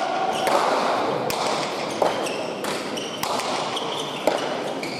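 A Basque pelota rally: sharp smacks of the hard ball struck by bare hands and hitting the court walls, about one a second, loudest about two seconds and four seconds in, with short squeaks of players' shoes on the floor between them.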